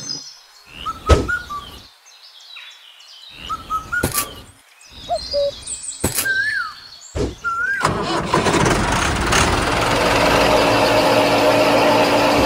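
A few sharp clicks and short bird-like chirps, then about eight seconds in a small electric motor on the miniature tractor-and-thresher model starts and runs steadily with a hum.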